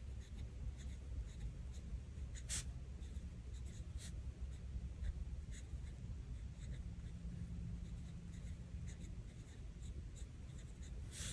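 Pen writing on planner paper: light, irregular scratching strokes, one a little louder about two and a half seconds in.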